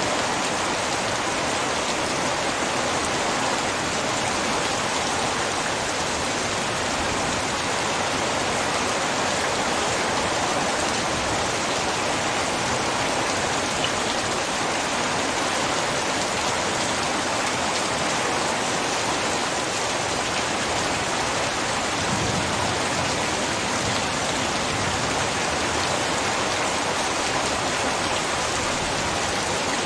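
Heavy rain pouring steadily: a dense, even hiss of falling drops with no change in strength.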